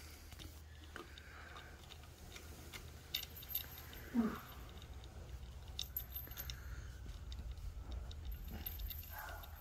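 Faint jingling and clicking from a hanging pom-pom toy as a kitten bats and bites at it on a carpeted cat tree, with a short sound dropping in pitch about four seconds in.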